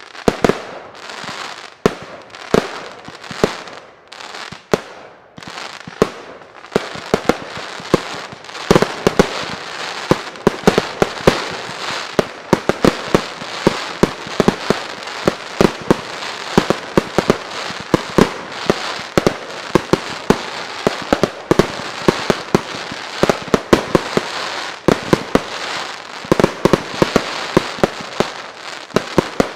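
Fireworks display fired mostly from firework batteries (cakes): a stream of sharp bangs with crackling between them. The shots grow denser and near-continuous after about seven seconds.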